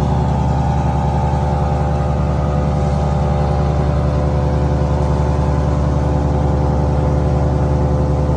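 Wood chipper's gas engine running steadily and loudly, with a pulsing low hum under several steady tones and no branches being chipped.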